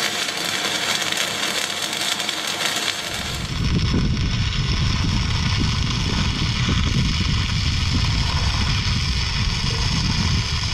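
Electric arc welding crackling and hissing for about the first three seconds. It then changes abruptly to a rough, deep rumbling noise with a steady hiss over it.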